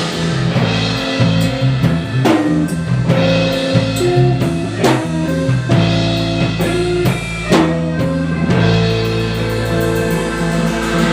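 Instrumental band music: drum kit and guitar over sustained chords, with a sharp drum hit about every two and a half seconds.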